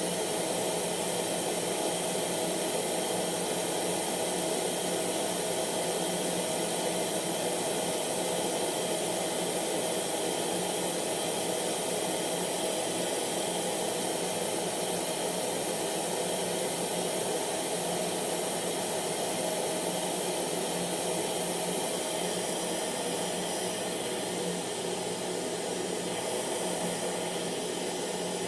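Hair dryer running steadily: an even rush of blown air with a constant motor hum and a faint whine.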